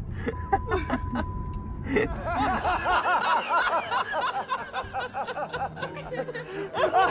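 Car cabin road rumble for about the first two seconds. Then a man laughs hard in quick, rhythmic bursts of cackling through to the end, from an inserted film clip.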